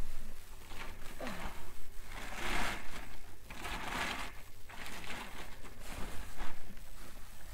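Reflective foil insulation sheeting crinkling and rustling as it is handled and moved about, loudest about two and a half and four seconds in.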